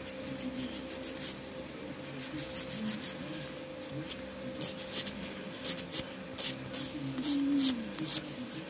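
Hand nail file rasping back and forth across an acrylic nail tip in quick repeated strokes, which come thicker and stronger in the second half.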